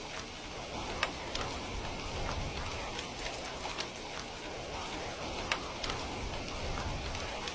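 Heavy rain falling steadily, a dense even hiss with scattered sharper drop ticks from drops striking a hard surface.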